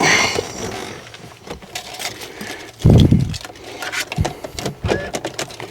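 Scattered clicks, rattles and knocks of hands handling equipment, with one heavy low thump about three seconds in.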